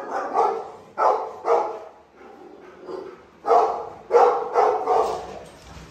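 A dog barking repeatedly in two runs of sharp barks: about four in the first two seconds, then after a short lull four more in quick succession.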